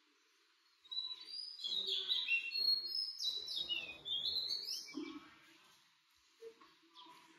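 Small birds twittering in a busy run of quick, high chirps that starts about a second in and dies away after about five seconds, with a few faint chirps near the end.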